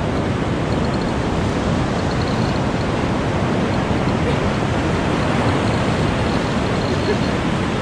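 Steady wash of shallow surf with wind, an even rushing hiss without breaks.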